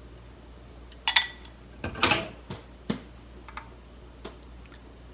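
Kitchen utensils clinking and tapping against a pot and a cup as simmered tofu pieces are lifted out: a ringing clink about a second in, a few more knocks at about two and three seconds, then light ticks.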